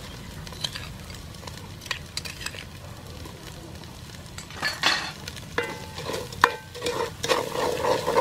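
Spice paste frying in oil in an aluminium pot, with a low sizzle, while a wooden spoon stirs and scrapes it, knocking against the pot. The scraping and knocks get louder in the second half.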